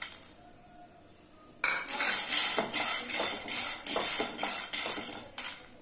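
Peanuts roasting in a nonstick pan being stirred with a wooden spatula, the nuts clattering and scraping against the pan in quick repeated strokes that start about a second and a half in, after a short quiet spell.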